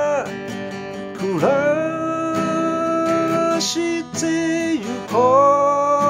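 A man singing long held notes, sliding between them, over a strummed acoustic guitar.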